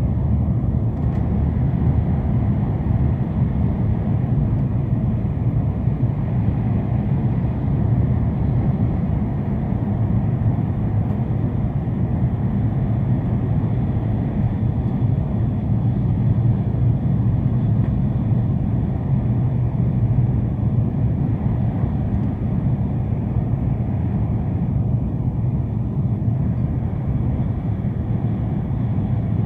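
Tohoku Shinkansen bullet train running at speed, heard from inside the passenger cabin: a steady, unbroken low rumble of the train in motion.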